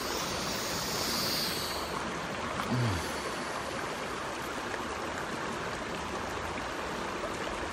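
Steady rush of a mountain river flowing over rocks: an even hiss of running water, a little brighter in the first two seconds. A short falling 'mm' hum of someone savouring food comes about three seconds in.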